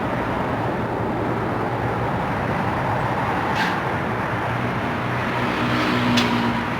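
Steady street traffic noise from passing vehicles, with two sharp clicks, one about halfway through and one near the end.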